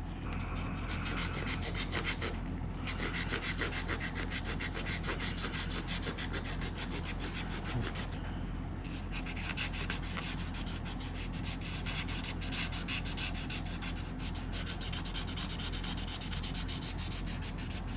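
Quick back-and-forth hand sanding or scrubbing strokes on the steel of a pitted revolver, to take off rust and pitting. The strokes pause briefly about eight seconds in, then carry on, over a steady low hum.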